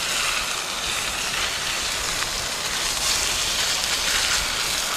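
Fish frying in a pan over an open wood fire: a steady sizzle, with faint ticks as the fish is turned with a spatula.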